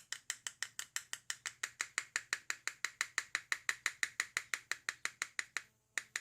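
Rapid, even tapping on a brass cartridge case as cream of wheat filler is settled into it over a powder charge, about seven light clicks a second. The clicks stop shortly before the end, followed by two last taps.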